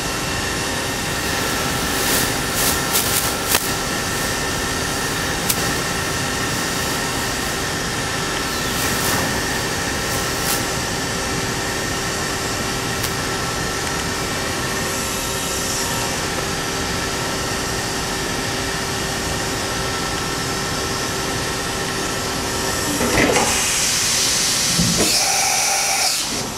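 Mori Seiki NH4000 DCG horizontal machining center running, a steady hiss and hum with several steady tones, with a few sharp clicks in the first few seconds. Near the end a louder passage with rising and falling tones comes as the automatic tool changer swaps the tool in the spindle.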